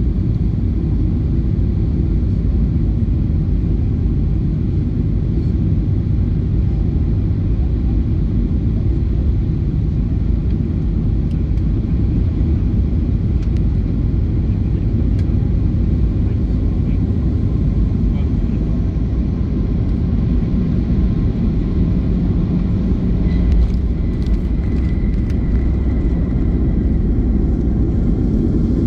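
Cabin noise inside a Boeing 737-800 with CFM56 engines during final approach, touchdown and runway rollout: a steady low rumble of engines and airflow. Late on the rumble swells briefly, with a faint thin whine over it, as the jet rolls down the runway.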